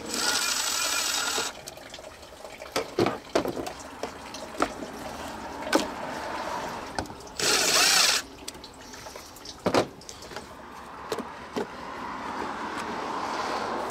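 Engine coolant running out of a car's drain plug and splashing, with two louder spells of rushing liquid and scattered clicks.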